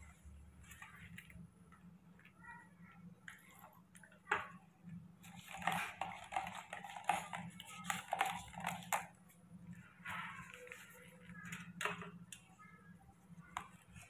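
Plastic cup and plastic spoon being handled: scattered light clicks and taps with rustling and scraping, busiest from about five to nine seconds in and again near the end.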